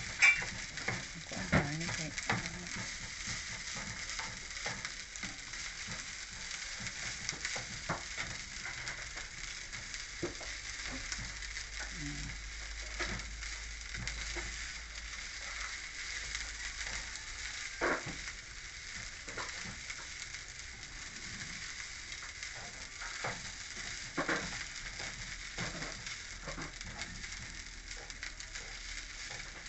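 Rice sizzling as it fries in a frying pan, with a slotted spatula scraping the pan and turning the rice at irregular intervals.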